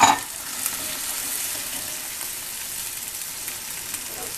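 Chopped tomatoes and onion sizzling steadily in olive oil in a nonstick frying pan as they are stirred with a silicone spatula. There is one sharp knock right at the start.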